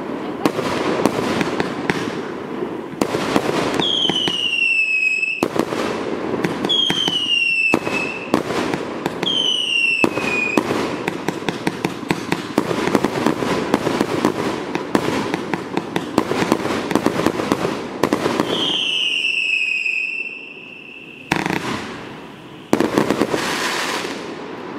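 Rongshine TKB390 1.2-inch 138-shot fireworks cake firing in rapid succession: a dense run of launches and crackling bursts, with four whistles that fall in pitch, three in quick succession and a fourth later. The barrage then thins to a couple of last bursts and dies away near the end.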